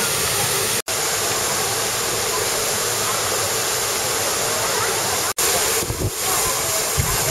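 Steady rush of an artificial waterfall pouring into a pool, broken twice by a split-second dropout.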